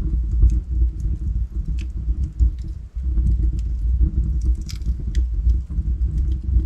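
Log fire in a fireplace, crackling with irregular sharp pops over a steady low sound of the burning wood. The biggest pops come about two seconds in and just before the five-second mark.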